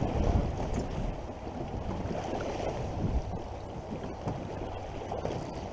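Wind rumbling on the microphone over choppy sea water splashing and slapping against the side of a small boat.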